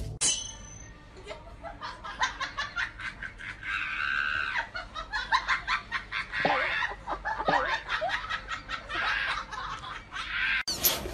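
People laughing off and on in short, irregular bursts.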